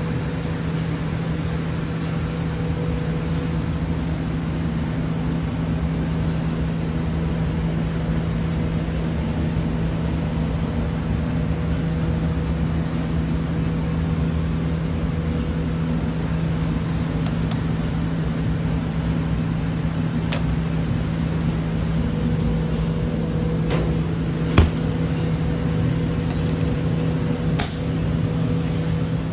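Steady hum of an electric fan or blower motor, with a constant low tone and a fainter higher one. A few light clicks and one sharper knock come in the second half.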